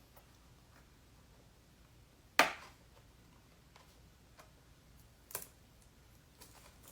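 Toy packaging being handled and opened: quiet fiddling with faint ticks, broken by one sharp crackle of the pack about two and a half seconds in and a softer one about five and a half seconds in.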